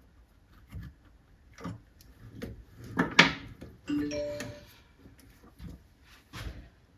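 Scattered metal clicks and knocks from handling the lathe's tool post and boring bar, the loudest a sharp knock about three seconds in. Just after four seconds comes a brief ringing tone, and another knock follows near the end.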